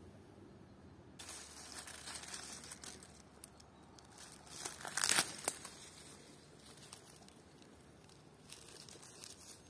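Leaves and twigs of a spindle-tree sprig rustling and crackling in short bursts as a gloved hand picks and handles it. The loudest burst comes about five seconds in.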